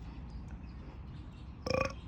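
A single short burp near the end, with a clear pitch.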